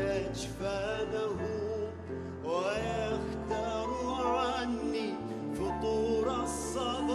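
A male singer sings an Arabic love song live in a wavering, ornamented line over piano and band accompaniment, with sustained low bass notes beneath.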